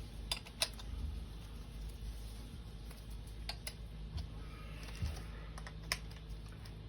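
A few scattered light clicks and clinks of small metal tools and burner parts being handled while an oil burner nozzle is being changed, over a low steady hum.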